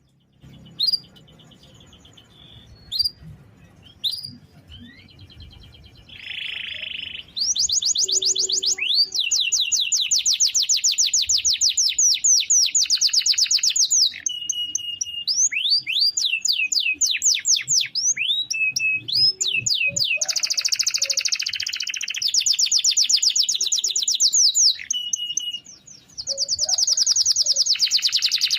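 Domestic canary singing: a few scattered chirps at first, then long, fast rolling trills of rapidly repeated high notes, broken by short pauses.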